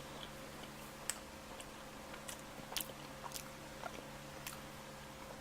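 Close-miked chewing of a bite of pepperoni pizza: faint, irregular wet mouth clicks about every half second, over a steady low electrical hum.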